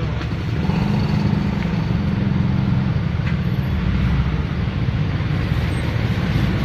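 Steady low rumble of road traffic, a little louder from about a second in.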